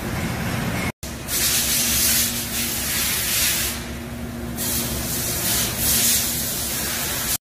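Doosan DB130CX CNC horizontal boring mill running with a steady hum. From about a second in, loud hissing comes in several bursts over a steady low tone.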